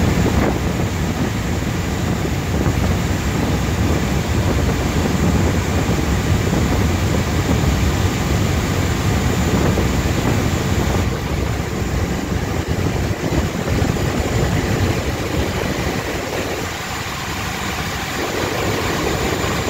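Cantika Express fast passenger boat under way at speed: a steady, loud drone of its engines mixed with the rush of water and spray along the hull.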